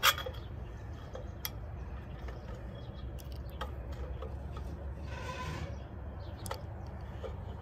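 Wire clothes hangers clicking and scraping against one another and the rack rail as garments are pushed along it, with a sharp click just after the start that is the loudest sound. A low steady rumble runs underneath.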